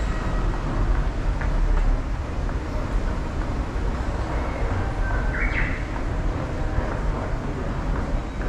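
Steady low rumble of an underground subway station, with a short beep-like tone about five seconds in.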